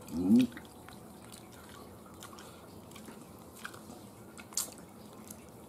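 Eating sounds: soft chewing and a few small clicks and smacks while roast chicken is pulled apart by a gloved hand, after a short vocal sound at the very start.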